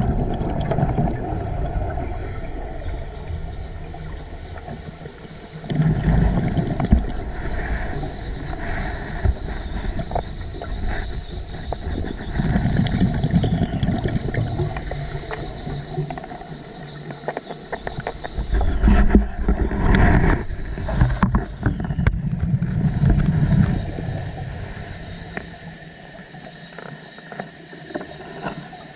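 Underwater recording of a scuba diver breathing through a regulator: low rumbling bursts of exhaled bubbles every several seconds, over a steady underwater rush.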